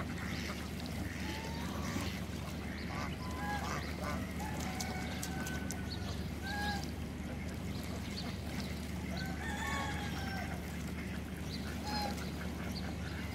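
A flock of domestic ducks and geese on a pond calling, with short quacks and honks scattered through, over a steady low hum.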